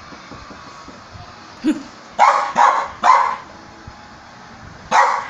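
Small dog barking: three quick barks about two seconds in, then another near the end.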